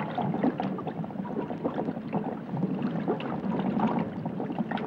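Air bubbling underwater: a dense, irregular bubbling and gurgling that goes on without a break.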